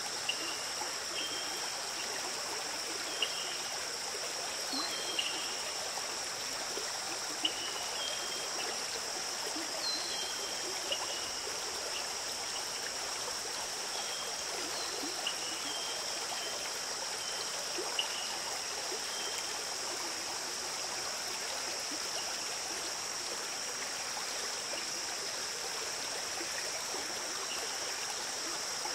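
Stream water running steadily, with short high chirps repeating through the first half.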